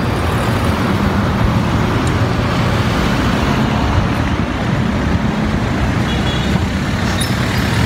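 Street traffic: cars and taxis running past on a narrow city street, a steady noise without pauses.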